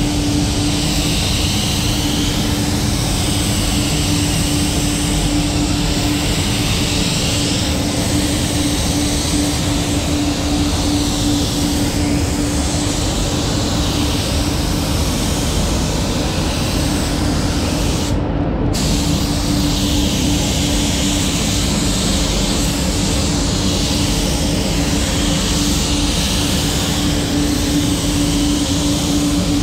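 Gravity-feed paint spray gun hissing as it atomises paint with compressed air, the hiss swelling and easing with each pass; it stops for a moment about two-thirds of the way through. Under it runs the steady hum of the spray booth's ventilation.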